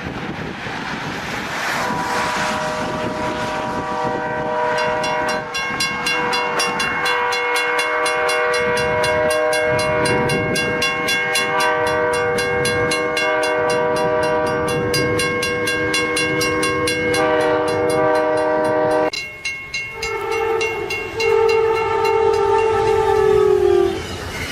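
Train horn sounding a long, steady multi-note chord for about fifteen seconds over a rushing background noise. About nineteen seconds in, it breaks off and a second horn chord at different pitches sounds for about five seconds, dropping in pitch near the end.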